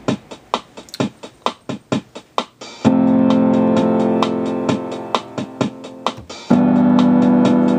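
Song intro played on a keyboard. A ticking beat runs at about four clicks a second, a sustained chord comes in about three seconds in and slowly fades, and a second chord is struck near the end.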